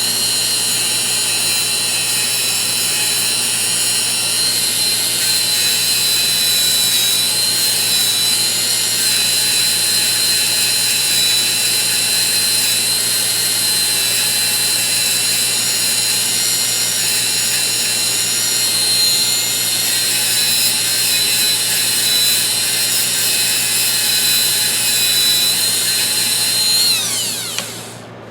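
Small high-speed power tool running steadily with a high whine, cleaning the grooves of ratchet parts. Near the end it is switched off and spins down.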